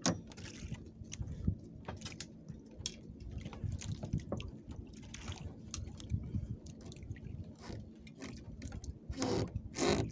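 Scattered clicks, knocks and wet handling sounds as a fishing line with a hooked fish is hauled in by hand on a small boat, over a faint steady low hum. A louder burst of noise comes near the end.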